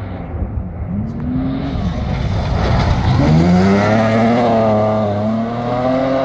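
Rally car engine at high revs, approaching and passing. The engine note dips and climbs again about a second in and again about three seconds in, then holds high and steady. It is loudest as the car slides sideways through the gravel corner, with the tyres throwing up gravel.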